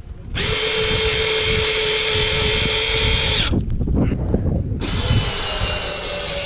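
Cordless drill-driver driving screws through a steel roof-hook base plate into a wooden rafter: a steady motor whine in two runs, with a break of about a second around the middle.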